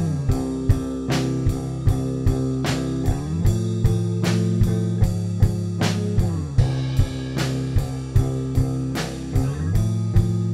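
Rock music with guitar and drum kit: held chords that slide down in pitch and back up every few seconds over a steady beat.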